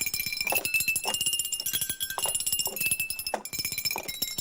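Small tuned cowbells jangling rapidly. Their clappers clatter continuously, and the ringing note shifts pitch several times as different bells sound in turn.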